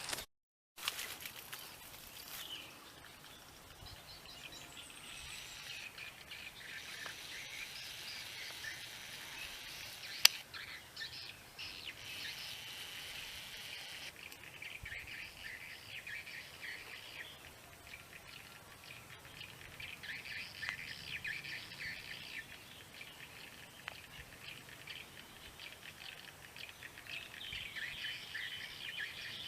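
Many small birds chirping steadily, with one sharp crack about ten seconds in that fits a shot from a PCP air rifle.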